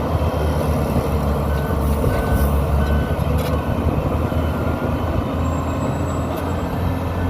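Crawler dozer's diesel engine running steadily under load, with a few short knocks.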